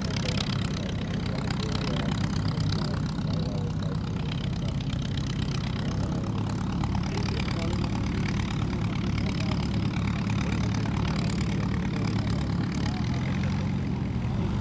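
Klemm 35D's piston engine running steadily at low power, a low even drone whose tone shifts slightly near the end.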